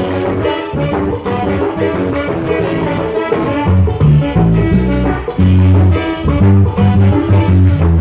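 A live reggae band with horns playing: a deep electric bass line and drum kit with hand drums, under saxophone and other wind parts, in a steady groove.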